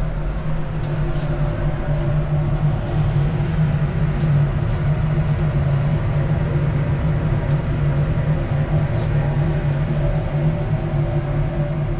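Steady drone of a lab ventilation fan, with a few faint clicks from glassware and metal being handled.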